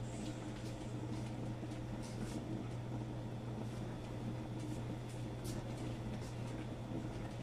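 Steady low appliance hum in a kitchen, with faint scattered ticks and crackles from the stovetop.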